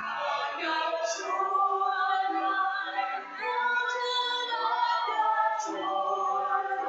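A woman singing a hymn with piano accompaniment.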